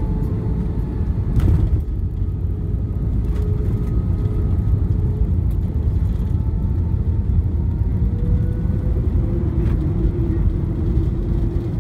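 Jet airliner touching down and rolling out, heard from inside the cabin over the wing: a thump about a second and a half in as the wheels meet the runway, then a steady loud rumble of wheels and engines during the landing roll, with a faint engine whine that rises a little near the end.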